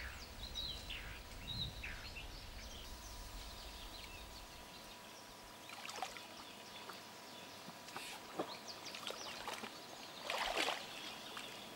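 Faint sloshing of muddy pond water as a giant Galápagos tortoise wades through it, with a few short splashes about six, eight and ten seconds in.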